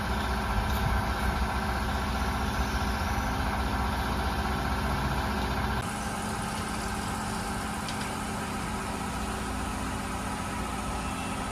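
Car engine idling steadily. The sound changes abruptly about six seconds in, then idles steadily again.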